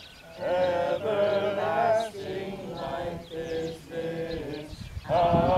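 A congregation singing a hymn together in held phrases, with short pauses for breath between lines and a louder line starting near the end.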